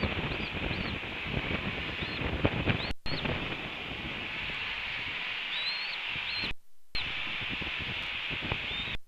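Rain and wind on an outdoor nest-cam microphone: a steady hiss over gusty low rumbling, with several thin high chirps scattered through it. The sound drops out briefly twice and cuts off suddenly at the end.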